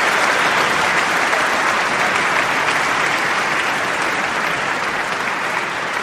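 Audience applauding: a dense crackle of many hands clapping, slowly dying down.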